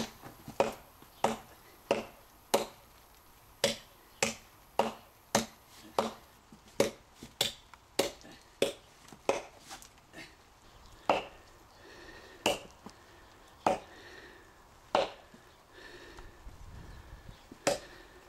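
Cold Steel Trail Hawk tomahawk chopping into a hard seasoned elm log: a run of sharp, woody chops about one and a half a second. After about ten seconds the strokes come more slowly, roughly one every second and a half.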